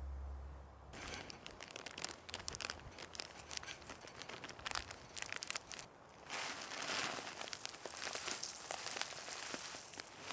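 Crinkling and crackling rustle of something being handled, scattered crackles at first, becoming a denser steady rustle about six seconds in.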